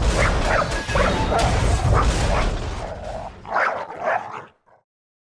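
Dog barking and yipping in quick succession, an attacking dog in a fight. It cuts off about four and a half seconds in.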